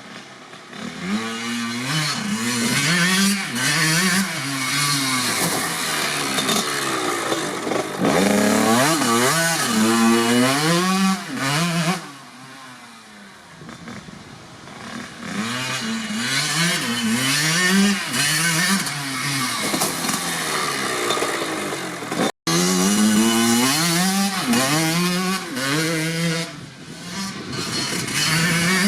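1997 Kawasaki KX80 two-stroke engine revving through a DEP silencer. The revs climb and fall over and over, settle lower and quieter for a few seconds around the middle, then climb again.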